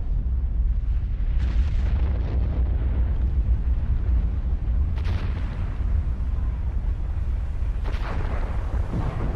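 Submarine volcanic eruption: a continuous deep rumble with three sudden blasts, about a second and a half in, at five seconds and at eight seconds, each fading out over a second or so.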